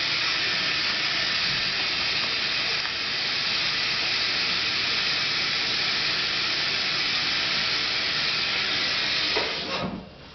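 A steady, loud hissing noise that cuts off suddenly near the end.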